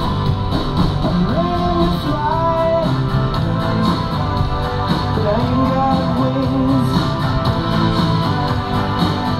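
Music: a song with guitar and a singing voice over a steady beat.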